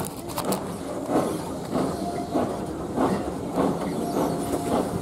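Steam-hauled heritage train running, heard from an open carriage window: a steady rumble of the carriages with a regular clattering beat a little under twice a second, and a faint thin squeal twice in the second half.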